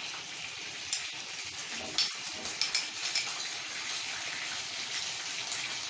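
Garlic paste sizzling in hot oil in a wok, a steady frying hiss, with a few light knocks and clicks from the spatula and utensils against the pan.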